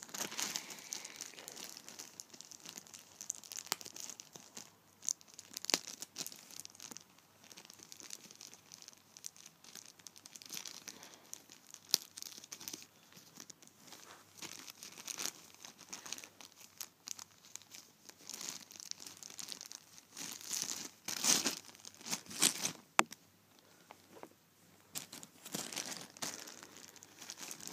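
A clear plastic bag crinkling in irregular bursts as hands handle it and the plastic gear sprues inside, with sharp clicks now and then. The loudest crinkling comes about three-quarters of the way through.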